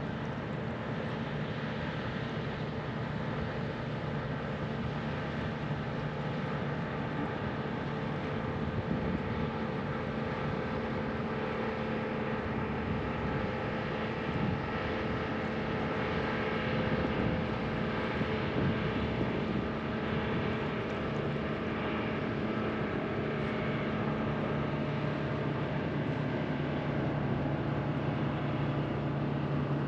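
A steady engine drone made of several held tones that runs without a break, a little louder through the middle stretch.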